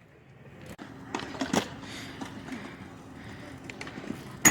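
A few scattered sharp knocks and clicks, the loudest near the end, over a faint steady low hum.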